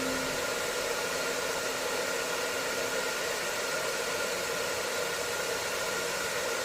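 Hair dryer running steadily: an even rushing hiss of air with a steady motor whine through it, used as white noise for lulling a baby to sleep.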